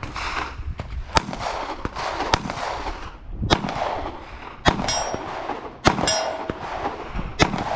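Pistol shots fired at a slow, even pace, about one every second or so, six in all. Some shots are followed by a brief metallic ring, like steel targets being hit.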